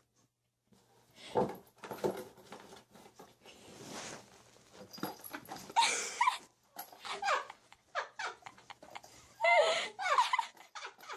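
A pet animal's cries: several short calls whose pitch bends, the loudest about nine to ten seconds in, with scattered knocks between them.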